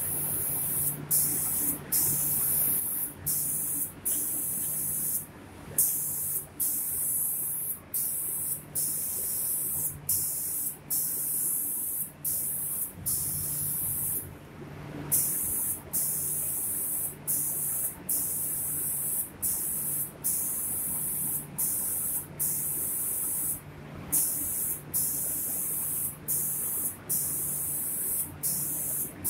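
Spray gun of a YICH-DPSM2500D CNC 5-axis spray painting machine hissing as it sprays door panels, cutting off briefly about once a second with a few longer pauses, over a steady low machine hum.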